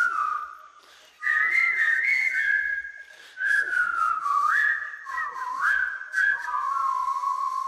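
Someone whistling a slow tune in phrases broken by short pauses, the pitch sliding between notes.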